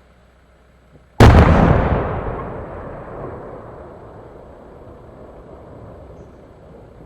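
Aerial firework shell bursting: one sudden loud boom a little over a second in, its rumbling echo dying away over several seconds.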